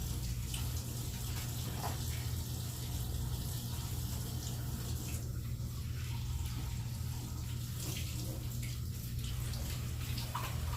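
Steady room background noise: a constant low hum with an even hiss over it, and a few faint soft clicks.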